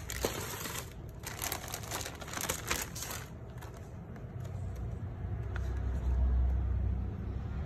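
Clear plastic packaging bag crinkling as it is handled and pulled off a toy car body, for the first three seconds or so. After that a low rumble, swelling about six seconds in.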